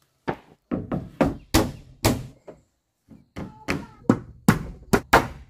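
Hammer blows on wood, about fifteen sharp strikes in uneven runs of two to three a second, with a short pause near the middle.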